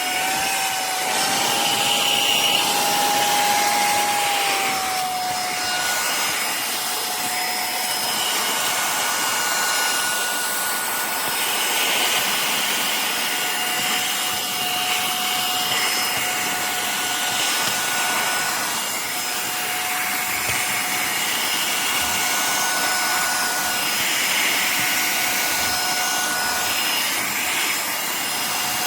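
Cordless handheld vacuum cleaner running steadily: a motor whine over rushing air, the whine shifting slightly in pitch and strength now and then.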